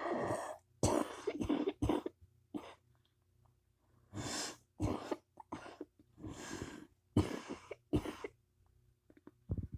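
Repeated harsh coughing in several fits of short hacks, with a pause of about a second around three seconds in. The title takes it for whooping cough.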